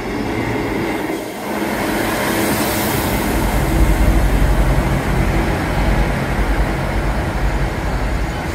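Northern Class 158 diesel multiple unit running close past along the platform, its underfloor diesel engines droning steadily and swelling louder about three and a half seconds in, with a hiss early on.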